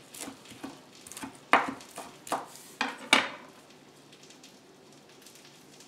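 A chef's knife chopping fresh parsley on a wooden cutting board: a handful of irregular sharp knocks of the blade on the board. The chopping stops a little over three seconds in, leaving only a faint steady hiss.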